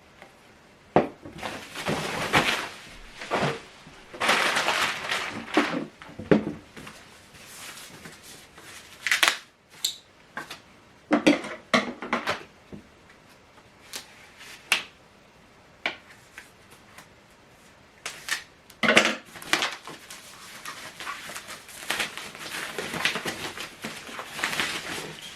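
Unboxing handling noise: packaging rustling and crinkling in irregular bursts, with scattered clicks and knocks as speaker units are lifted out and set down.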